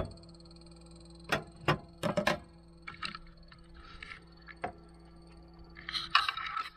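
Kitchen clatter: a small frying pan and spatula knocking against a gas hob and plate, with several sharp knocks and a rustle near the end.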